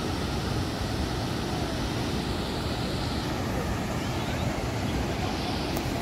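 Steady rushing of a river waterfall, with a low rumble of wind on the microphone.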